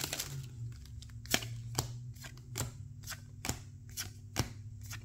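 Weiss Schwarz trading cards being flipped one by one through a freshly opened booster pack, each card giving a light snap, about two a second from about a second in, over a faint steady low hum.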